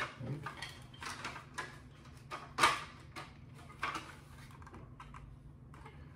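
Plastic body and chassis of a Kenner Ecto-1 toy car clicking and knocking as they are twisted and forced apart by hand, a few irregular clicks with the loudest about two and a half seconds in.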